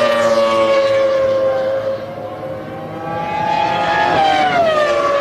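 Arrows Supertec 3.0-litre V10 Formula One engine at high revs, heard trackside. Its high-pitched note drops just at the start, holds, climbs steadily from about two seconds in, then falls again about four seconds in.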